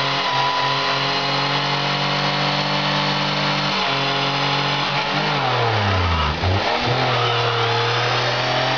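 Car engine revving hard during a burnout, held steady at high revs while the tyres spin. About five seconds in, the revs fall steeply for a second or so, then jump straight back up.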